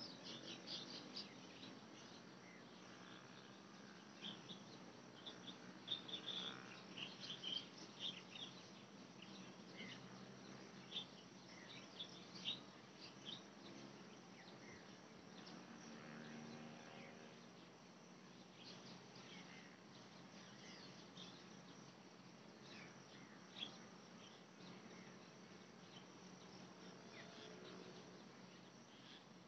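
Faint countryside ambience: scattered short, high chirps, busiest in the first half, over a low steady hum.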